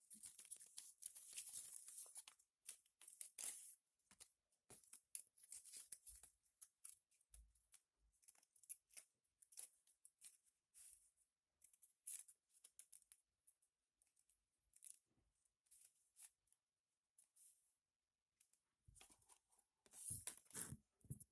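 Faint rustling and crinkling of paper pieces being handled, in short bursts with small clicks. It is denser over the first few seconds and again near the end.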